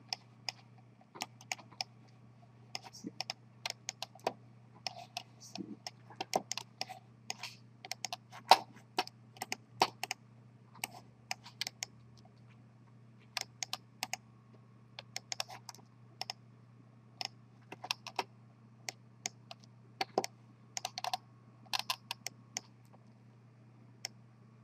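Computer keyboard keys and mouse buttons clicking irregularly as the 3D viewport is navigated in Blender, with short clicks throughout. A faint low steady hum runs underneath.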